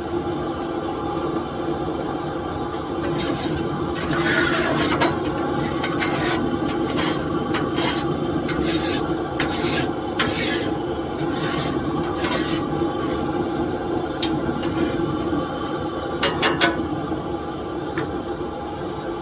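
Scraping and rubbing of kitchen utensils, with a run of short clattering strokes through the middle and a brief cluster near the end, over a steady hum.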